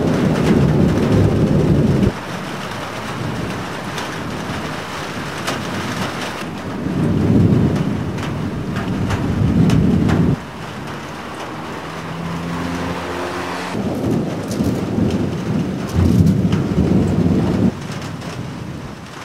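Thunder rolling over steady heavy rain in a severe thunderstorm. Three long low rumbles come and go over the rain's hiss, near the start, in the middle and near the end, and each one stops abruptly.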